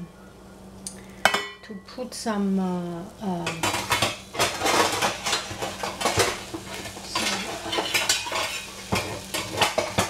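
Dishes and metal cutlery clinking and clattering. There is one ringing clink about a second in, then a busy run of utensil clatter from about three and a half seconds on.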